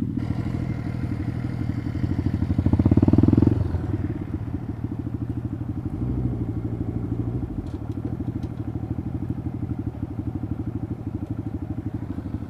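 Honda Grom's 125cc single-cylinder four-stroke engine idling with a fast, even pulse. It is revved up briefly about two seconds in, then drops back to idle.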